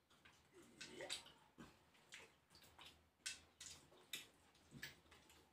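Faint wet sucking and slurping mouth sounds, several short slurps and smacks spaced roughly half a second to a second apart, as snails cooked in coconut milk are sucked out of their shells.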